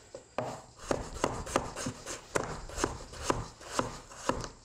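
Kitchen knife chopping a golden beet on a wooden cutting board: a run of about ten sharp knocks, roughly two a second.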